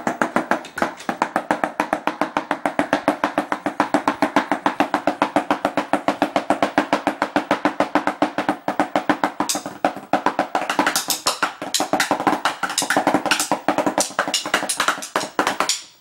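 Drumsticks played fast on a drum pad: an even, rapid run of strokes, about seven a second, which turns into harder, more uneven accented hits in the last few seconds before breaking off.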